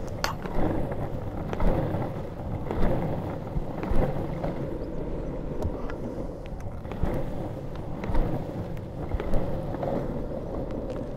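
Longboard wheels rolling over tarmac: a steady rumble with scattered small clicks and knocks from bumps in the road surface.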